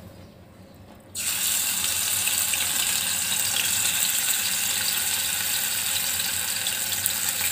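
Ginger-garlic paste sizzling in hot oil in a kadai: the frying hiss starts suddenly about a second in as the paste goes into the oil, then stays steady.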